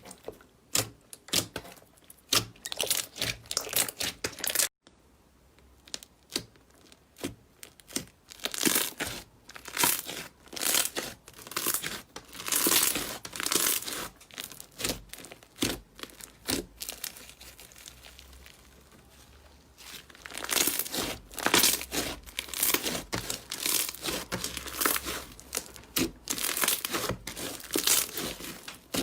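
Slime being squeezed and worked by hand, giving dense runs of short crackling, crinkly pops. There is a sudden cut about five seconds in, and a quieter stretch just past the middle.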